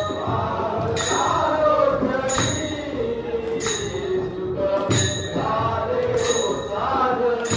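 Group devotional bhajan: men singing in unison, with small hand cymbals (taal) struck together about every second and a quarter, each strike left ringing, and a pakhawaj drum beating low underneath.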